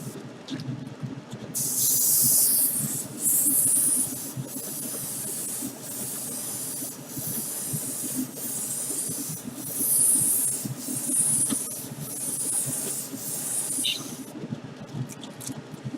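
Clear coat being sprayed: a hiss in long passes with brief breaks, starting about a second and a half in and stopping near the end.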